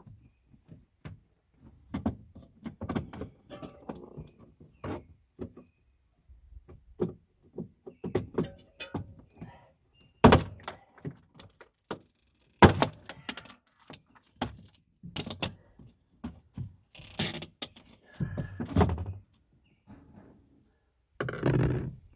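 Irregular knocks, clicks and thunks of a refrigerator's plastic inner panels and cooler-unit housing being pried and pulled at, still held by clips or a hidden screw, with a few longer, noisier stretches near the end.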